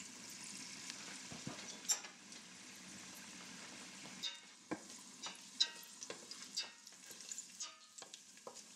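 Garlic frying in a little oil in a stainless-steel pot: a faint, steady sizzle, then from about four seconds in scattered pops and clicks as a wooden spoon stirs it.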